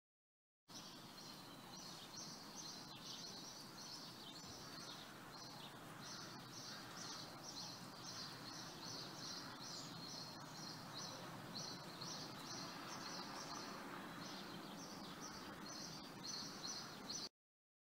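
Small birds chirping rapidly and continuously over a steady hum of street noise. The sound starts abruptly just after the beginning and cuts off abruptly near the end.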